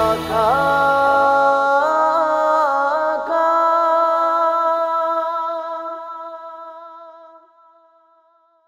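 A cappella naat backing: voices humming a long held note that slides up a step about three times, then fades out slowly to silence near the end.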